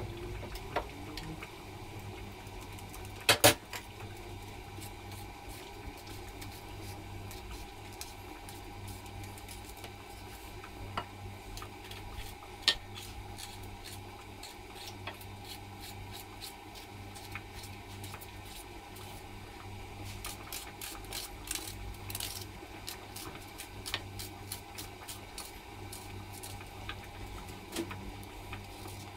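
Small clicks and taps of a knife cutting vegetables in hand and of pieces being dropped into a glass baking dish, over a steady low hum. Two sharp clicks come about three seconds in, and a run of lighter clicks a little after twenty seconds.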